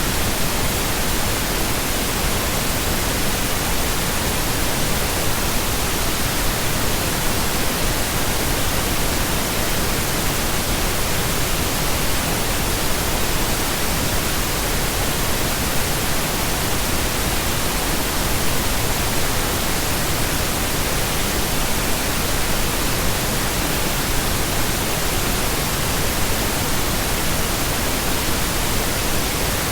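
Pink noise: a steady, even hiss spread across the whole range, unchanging throughout.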